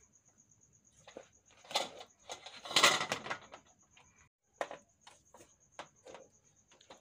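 Plastic rice paddle scooping cooked rice, scraping and tapping against an aluminium pot and a plastic colander in a run of short clicks, with the loudest clatter about three seconds in. A high, steady pulsing trill sounds faintly underneath.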